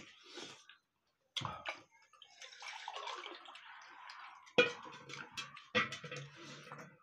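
Water poured from a steel pot into a steel tumbler, a steady splashing hiss for about two seconds. Steel dishes knock and clink around it, twice loudly after the pour.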